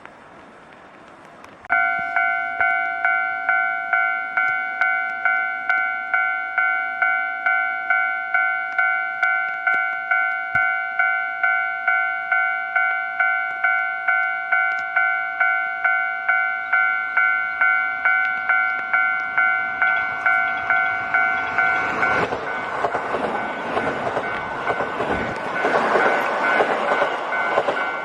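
Level-crossing warning bell starts about two seconds in, ringing a steady multi-tone ding about twice a second. About 22 seconds in a Kintetsu Osaka Line train reaches the crossing, and its loud rush and wheel noise build over the bell.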